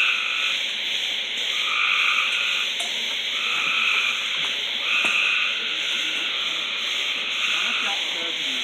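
A chorus of frogs calling at night: a steady trilling din with louder individual calls standing out every second or so.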